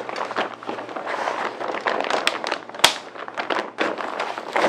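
Rustling and crinkling of an Elinchrom Rotalux Octa softbox's silver-lined fabric as its metal rods are snapped into the speed ring brackets, with scattered clicks and one sharp snap nearly three seconds in.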